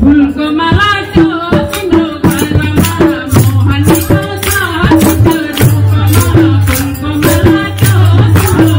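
Devotional Krishna song (bhajan) with singing over rattling hand percussion and a pulsing bass beat, starting abruptly and loud.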